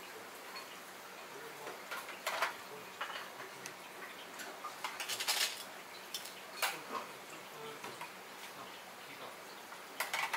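Utensils and dishes clinking as toppings are placed on a bowl of ramen: a few scattered light clicks, with a short cluster of them about halfway, over a steady kitchen hiss.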